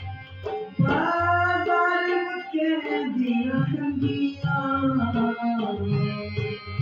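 Pahari folk song with harmonium and tabla: a male voice sings a long drawn-out phrase from about a second in, its pitch sliding down, over sustained harmonium chords and steady tabla strokes.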